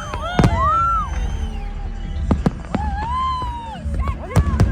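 New Year's fireworks bursting: several sharp bangs, the loudest about half a second in and a cluster near the end, with high whistling tones that rise and fall between them, over a steady rumble of crowd and city noise.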